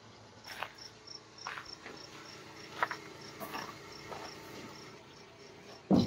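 1941 General Electric refrigerator running with a low steady hum and irregular gurgles: the sound of refrigerant starting to circulate in the freshly started unit, which the owners are unsure is normal. A steady high chirping, about three chirps a second, runs underneath, and there is a short low thump near the end.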